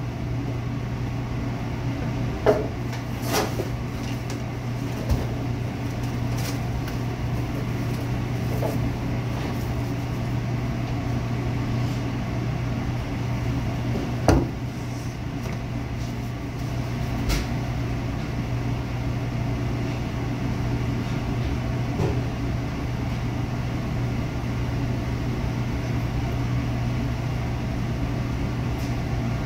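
Steady low machine hum of commercial kitchen equipment, with a few scattered knocks and clatters; the loudest knock comes about halfway through.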